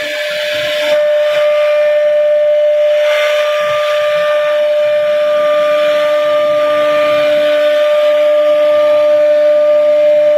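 CNC router spindle running at a steady high whine as its bit cuts scrollwork into a wooden panel, with a hiss of cutting underneath.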